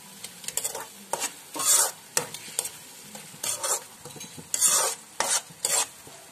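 Metal spoon stirring and scraping through a sizzling sauce in a frying pan: about ten short scrapes over a steady low sizzle.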